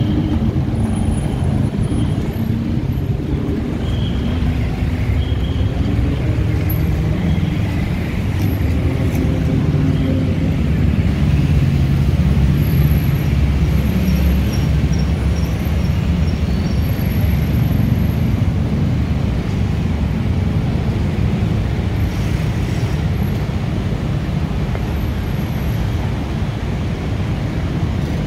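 Dense road traffic: cars and buses running past in a steady, loud rumble of engines and tyres.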